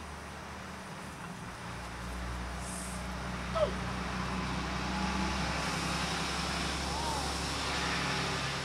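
A motor vehicle's engine running steadily, a low hum that grows slowly louder, with a few faint short chirps over it.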